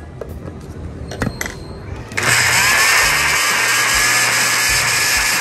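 Countertop electric blender switched on about two seconds in, its motor whining up to speed and then running steadily as it chops up chopped onion, garlic, ginger and chili. A few light clicks come just before it starts.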